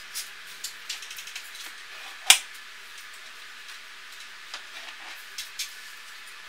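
Serrated bread knife cutting through a baked cake on a plastic cutting board: scattered light ticks and scrapes, with one sharp click about two seconds in.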